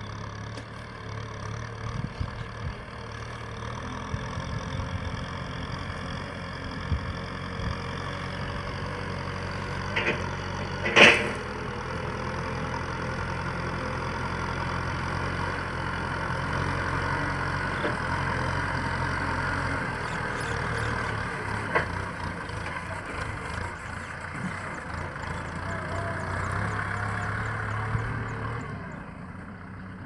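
Kubota M6040 SU tractor's four-cylinder diesel engine running steadily under load as it pulls a disc plough through a dry field, growing louder as it nears and fading near the end as it pulls away. One sharp knock stands out about eleven seconds in.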